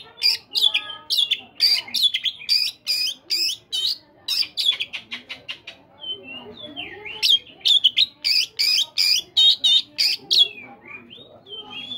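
Oriental magpie-robin singing: fast runs of loud, sharp repeated notes, a softer stretch of lower, varied notes in the middle, then more quick notes and a long held whistle starting near the end.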